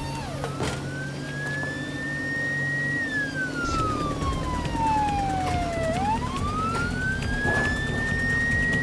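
A siren wailing slowly up and down. It rises over about three seconds, falls over about three, and rises again near the end.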